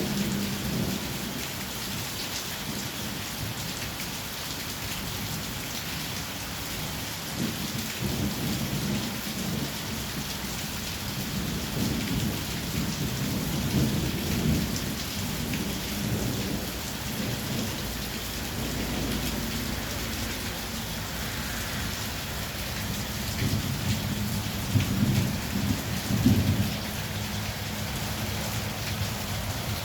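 Heavy rain falling steadily, with thunder rumbling low in the background; the rumbles swell and fade and are loudest near the end.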